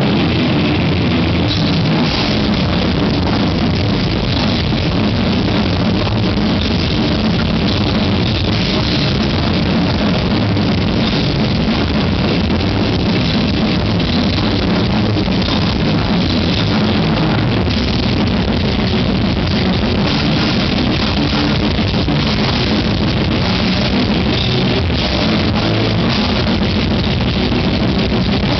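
Death metal band playing live: distorted electric guitars and a drum kit, loud and unbroken.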